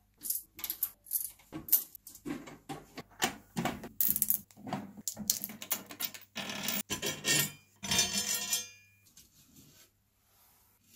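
Chrome hardware of a Gretsch snare drum clinking and rattling as its tension rods are unscrewed and pulled from the lugs and the metal hoop is handled, a string of sharp metallic clicks with a longer ringing clatter about seven to eight and a half seconds in.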